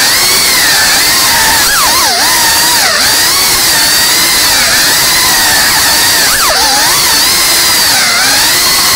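Small FPV quadcopter's brushless motors and propellers whining, the pitch wavering up and down with the throttle, with a few quick plunges and recoveries in pitch about two seconds in and again past the middle.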